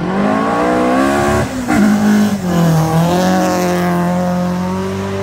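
Ford Escort Mk2 rally car engine accelerating hard. The pitch climbs, breaks briefly at gear changes about one and a half and three seconds in, then rises again at high revs.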